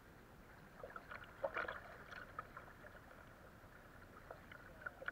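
Kayak paddling: small splashes and drips from the paddle blades at uneven intervals, the loudest cluster about a second and a half in, over faint steady water noise.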